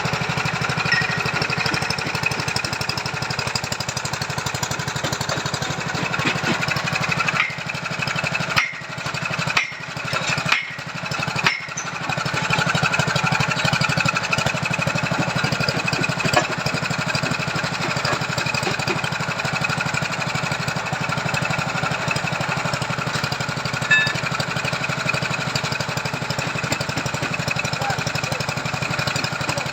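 Small petrol engine of a motorised soil auger running steadily while it drills a foundation hole, with three or four brief dips in its sound a little past a quarter of the way through.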